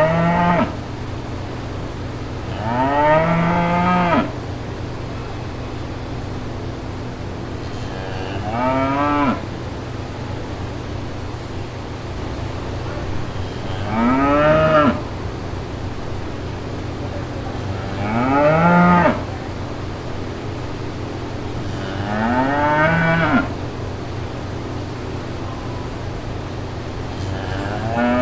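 Cattle mooing: about six long moos, each rising and then falling in pitch, spaced a few seconds apart, over a steady low hum.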